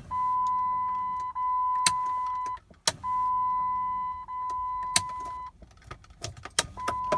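Three long, steady, high electronic beeps, each about two and a half seconds, with sharp clicks between them, as stored misfire trouble codes are being pulled from the Jeep.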